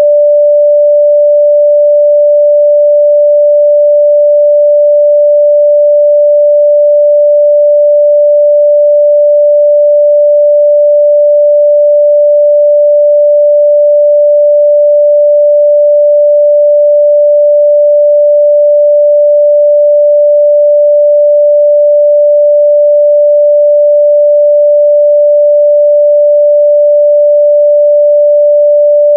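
A pure 588 Hz sine-wave test tone, held steady at one pitch and level throughout.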